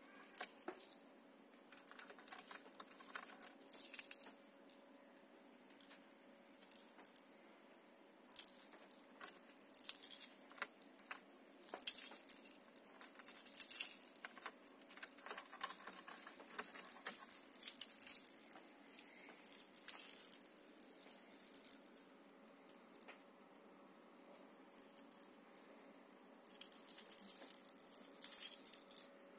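Metal treble hooks and split rings on hard plastic minnow lures clinking and jangling together as the lures are handled and bunched in the hand, in many short irregular bursts.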